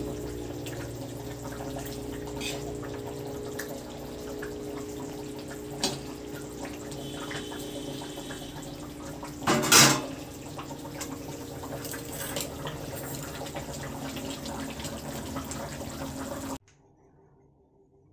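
Fish curry simmering in a pan, bubbling with small pops over a steady low hum, with one louder noise about ten seconds in. The sound stops abruptly near the end, leaving near silence.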